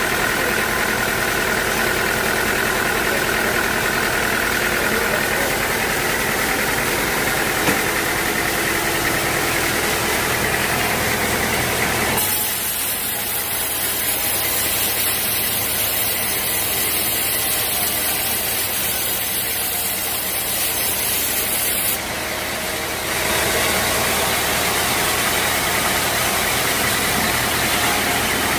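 Sawmill machinery running steadily. From about twelve seconds in, the sound turns to a high hiss with less rumble for roughly ten seconds, then goes back to the steady running sound.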